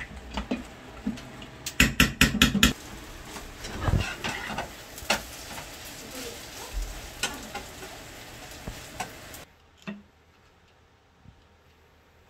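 Metal utensils clattering against a bowl and pan, with a quick run of clicks about two seconds in, then a maesaengi (seaweed) pancake frying with a light sizzle as a spatula works it. About nine and a half seconds in, the sound drops to near quiet with a few faint ticks.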